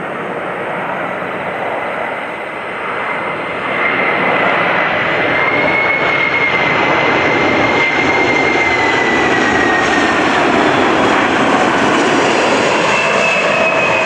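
Boeing 747-400 on final approach with gear down, its four Pratt & Whitney PW4056 turbofans making a steady jet roar. The roar grows louder about four seconds in and then holds, with a high fan whine that wavers slightly in pitch.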